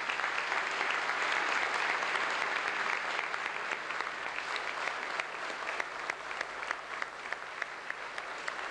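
Large audience applauding in a big hall, a dense steady clatter of many hands that eases slightly in the second half.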